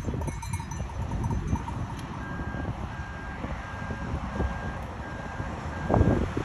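Roadside ambience: a low rumble of traffic and wind, with a faint electronic beep repeating about every two-thirds of a second from about two seconds in. About six seconds in, a much louder rush of noise builds as a large vehicle draws near.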